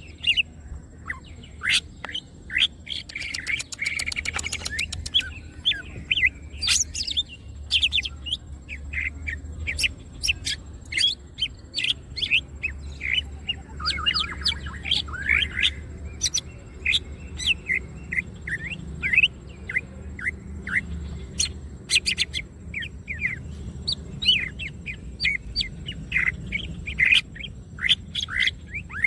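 Green leafbird (cucak ijo) singing continuously: a busy run of short chirps and whistled notes, with a fast rattling trill a few seconds in, over a steady low hum.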